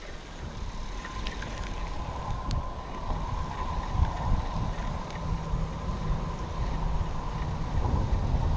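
Low rumble of traffic crossing the bridge overhead, growing louder, with a faint steady whine and wind buffeting the microphone.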